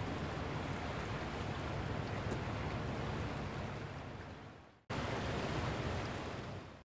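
Steady rushing noise of wind and sea water. It fades out about four and a half seconds in, then after a brief silence the same noise starts again.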